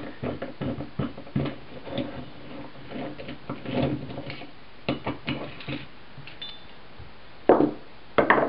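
Small metal clicks and rattles from a hex T-wrench undoing the screws that hold a puller to a small two-stroke engine's flywheel. Near the end come two much louder knocks as the metal parts are put down on the bench.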